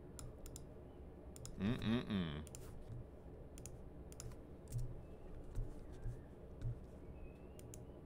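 Computer mouse and keyboard clicks, scattered and soft, as someone searches on a computer. About two seconds in there is a brief louder sound whose pitch slides up and down, and several soft low thumps follow later.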